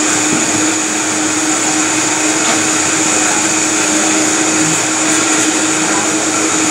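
Countertop blender running steadily at high speed, blending a green smoothie.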